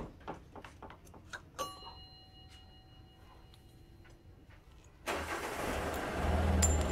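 Light metallic clicks and clinks as a motorcycle's front brake caliper and pads are handled, with one ringing clink of a metal part. About five seconds in, a motor vehicle engine starts close by and keeps running with a steady low hum, louder than the clicks.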